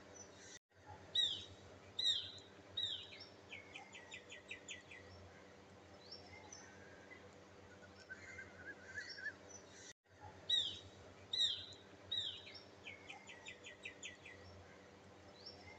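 Bird calls: three quick falling whistled notes followed by a fast trill. The identical phrase comes twice, each time just after a brief cut-out, as in a looped recording. A faint steady hum runs underneath.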